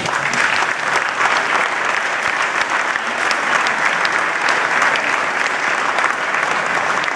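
Audience applauding: many hands clapping together at an even level.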